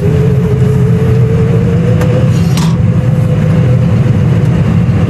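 Tractor engine running steadily under load, heard from inside the cab while pulling a round baler, with a thin whine that rises slightly in pitch over the first two seconds. A couple of light clicks come about two seconds in.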